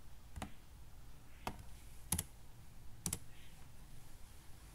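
Four separate key clicks on a computer keyboard, spaced roughly a second apart, the last two the loudest.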